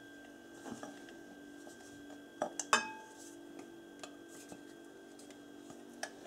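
Light clinks of glassware as oil is poured from a glass measuring jug into a glass mixing bowl and scraped out with a spatula: a few brief taps, the loudest about two and a half seconds in with a short ring. A faint steady hum sits underneath.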